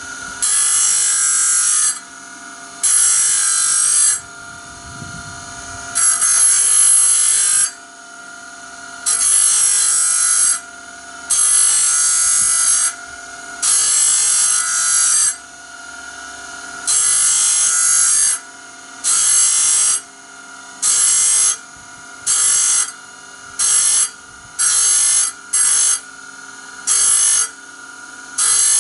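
Small electric grinder running steadily while it grinds band saw blade teeth one at a time. There are about sixteen loud grinding bursts as the stone touches each tooth. They last a second or two at first and become shorter and quicker in the second half.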